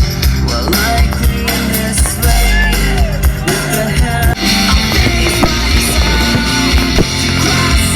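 Rock-style music with a singer, bass and drums.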